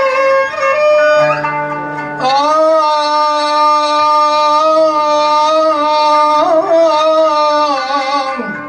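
Live Arabic ensemble music: violin and a plucked qanun with a singer, the qanun and violin playing short melodic notes before one long note is held from about two seconds in almost to the end, wavering slightly as it closes.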